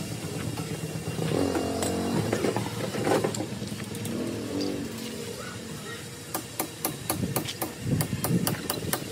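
A motor vehicle engine, likely a motorcycle, running in the background and rising and falling in the first half. From about two-thirds of the way in comes a rapid series of sharp clicks, several a second.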